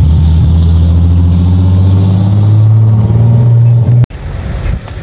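Toyota Land Cruiser's engine running with a loud, deep, steady drone as it drives off. It cuts off abruptly about four seconds in.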